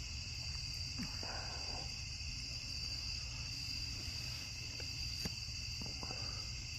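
Steady, high-pitched chorus of night insects shrilling without a break, with a few faint clicks and soft rustles.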